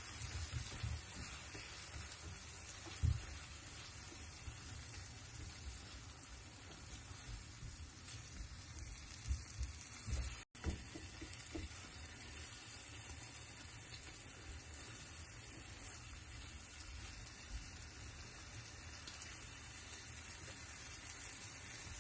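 Food sizzling as it fries in a pan, with scattered low knocks.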